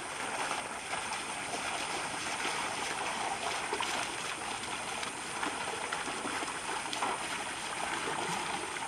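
Steady sloshing and churning of muddy water as a pair of oxen and a plough wade through a flooded paddy field.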